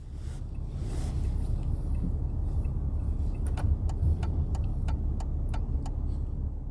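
Car interior noise from the back seat: a steady low road and engine rumble. For a couple of seconds in the middle comes a run of sharp clicks, about three a second.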